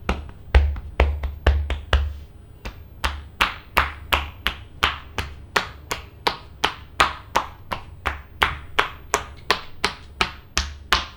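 Hands striking a client's back in a fast percussive massage, an even run of slaps at about three a second that stops near the end.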